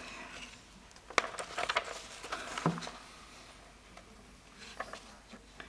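Quiet room tone at a lectern, with a scatter of small clicks and rustles about one to three seconds in.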